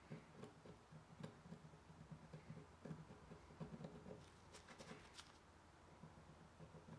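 Faint, irregular scratching and light clicking of a metal hook pick scraping leftover paint out of the edge of oak veneer.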